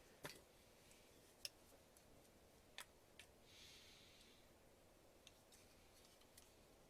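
Near silence: room tone with a few faint, sharp clicks and a brief soft rustle about halfway through.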